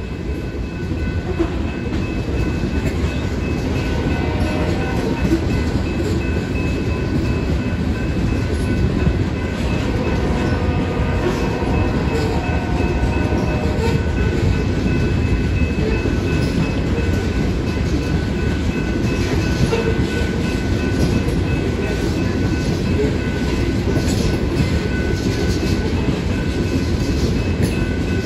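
Loaded coal train's freight cars rolling steadily past, a continuous rumble of steel wheels on the rails that grows a little louder over the first few seconds.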